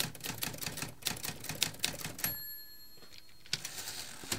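Typewriter sound effect: rapid key strikes clacking for about two seconds, then a single ringing ding like the carriage-return bell, followed by two more isolated key strikes.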